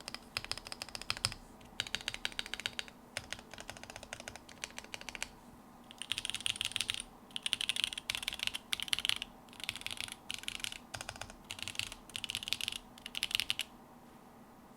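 Typing on a Quefrency 60 split mechanical keyboard with lubed, filmed Creamsicle linear switches, DCP keycaps and foam-dampened plates. The keystrokes come in quick runs separated by short pauses and stop about a second before the end.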